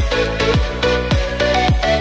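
Electronic dance music with a steady kick drum, a little under two beats a second, under a repeating synth melody.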